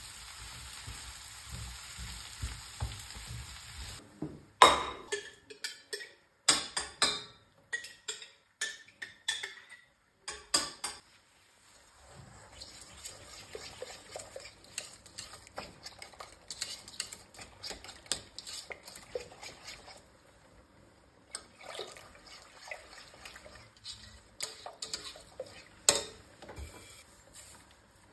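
Kitchen cooking sounds: a steady sizzle for about the first four seconds, then utensils knocking and clinking against pots and dishes, sharp clatters at first and lighter, scattered ones later.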